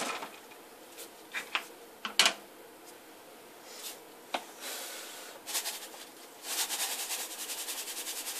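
Light knocks and clinks as a spoon and bowls are handled in a stainless steel sink, the loudest about two seconds in. From about six and a half seconds there is a steady fine rattling hiss of dry lye granules being sprinkled over frozen goat milk cubes.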